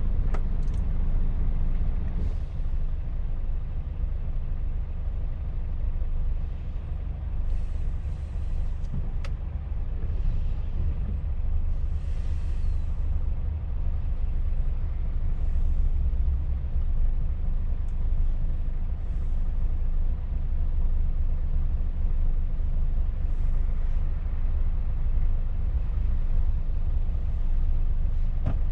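Scania truck's diesel engine idling, heard inside the cab: a steady low rumble, slightly heavier for the first two seconds. A few short hisses come through over it.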